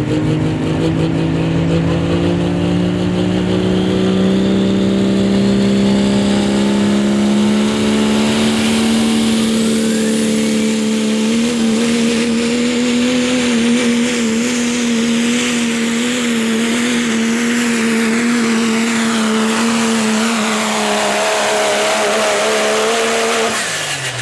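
2003 Dodge pickup's turbocharged Cummins diesel at full throttle, pulling a weight-transfer sled. Its pitch climbs for about ten seconds, then holds steady with a slight wavering under the heavy load. Near the end the engine note drops off sharply as the pull ends.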